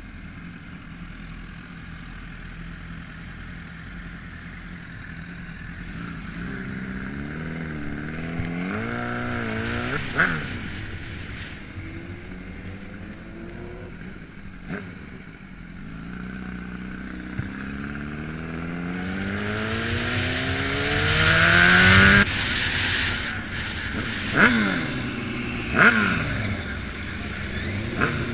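Sport motorcycle engine accelerating hard through the gears. Its pitch climbs in each gear and drops sharply at each upshift, loudest about 22 seconds in. A few short, sharp revs follow near the end.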